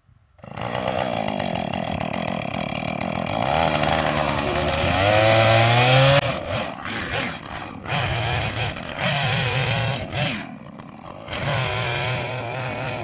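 Husqvarna chainsaw running hard and cutting wood, its pitch climbing to a peak about five to six seconds in, then dropping and rising again as the saw is revved up and down.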